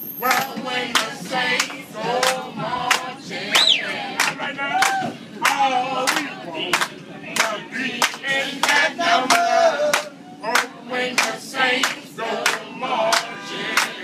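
A group of people singing together and clapping in a steady rhythm, about two claps a second, with a single high cry rising and falling about three and a half seconds in.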